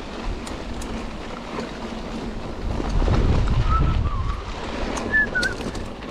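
Wind buffeting the microphone, a low rumble that swells about three seconds in, with two faint short wavering calls near the end.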